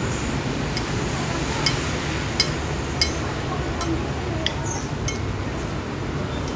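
Metal spoon clinking against a bowl while eating, several sharp light clinks over a steady low background rumble.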